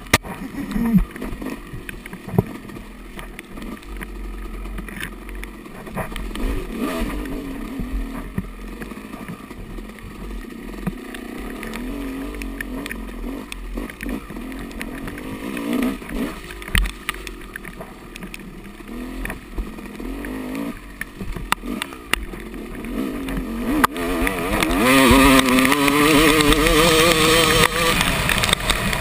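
Yamaha dirt bike engine revving up and down as the bike is ridden hard along a rough trail, with occasional sharp knocks. About 24 s in the revs climb and the engine gets louder as the bike accelerates.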